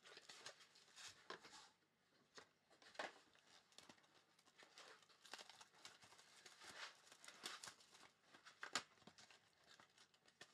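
Faint crinkling and tearing of plastic wrap and cardboard as sealed trading-card boxes are opened by hand, in scattered short crackles, with a sharper click a little before the end.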